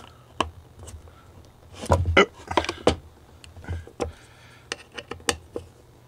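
Pliers clicking and knocking against the nuts and screws of a steel joystick-mount arm as they are snugged down, with a louder cluster of knocks about two seconds in and single ticks after.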